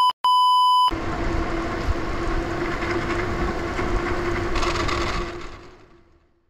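A censor bleep, a pure tone broken by a short gap, ending about a second in. After it comes the road and wind noise of a moving bicycle with a faint steady hum, fading out to silence near the end.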